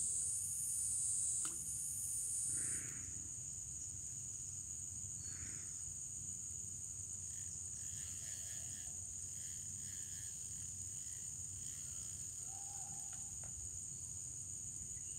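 Steady high-pitched insect chorus, swelling in waves for the first three seconds and then holding even, with a single faint click about a second and a half in.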